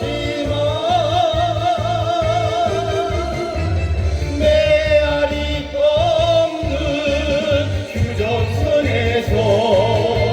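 A singer performing live over a backing track with a steady beat. The voice holds long notes with a wide vibrato.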